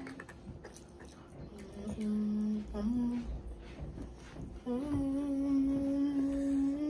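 A voice humming held notes: a short low hum about two seconds in, a brief one near three seconds, then a long steady hum from about five seconds in.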